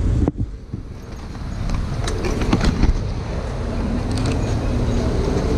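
Motorcycle running, cut off abruptly a moment in. Then street traffic rumbles along with scooters going by, and a few sharp clicks and knocks come as a motorcycle helmet is taken off.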